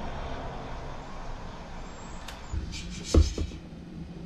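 Handling of a Mehu-Liisa steam juicer's outlet hose and clamp as it is lifted: a click, then a few knocks and a sharp thump about three seconds in. A steady low hiss and rumble runs under the opening second or so.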